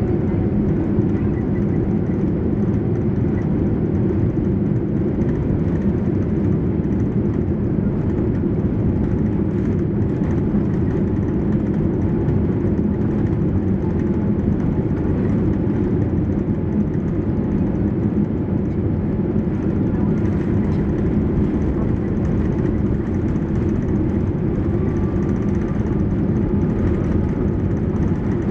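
Steady low rumble inside the passenger cabin of a Boeing 787-8 with Rolls-Royce Trent 1000 engines: engine and airflow noise at an even level.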